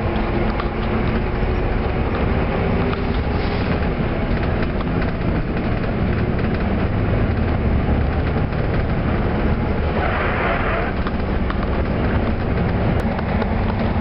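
Steady low rumble of a moving vehicle heard from inside, with a brief hiss about ten seconds in.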